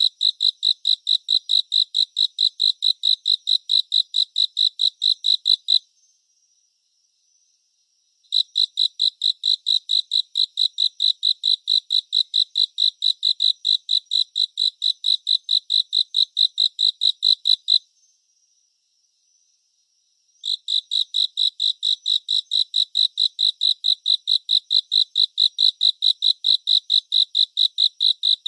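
A cricket chirping: a high, even pulse of about four chirps a second, in long bouts that stop about 6 seconds in and again about 18 seconds in, each time resuming after a pause of two or three seconds.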